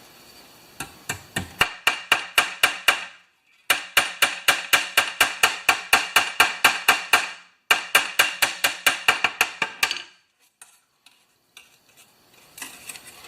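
A hammer rapidly striking the end of a steel recoil-starter spring to flatten it out, about five blows a second in three runs with short breaks between, stopping about ten seconds in.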